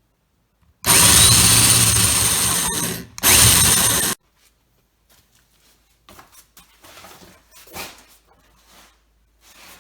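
Power drill boring a 2-inch hole through a wooden door, in two runs of about two seconds and one second with a short break between, cutting off suddenly. Faint clicks and handling noises follow.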